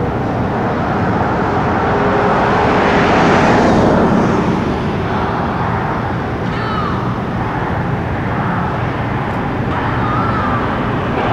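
City street traffic: a steady rush of passing cars that swells as one goes by about three to four seconds in.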